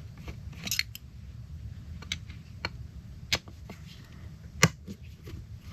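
Scattered sharp clicks and taps of a screwdriver and small metal parts as screws on an outboard's reed plate are cracked loose and handled; the loudest tap comes a little past the middle.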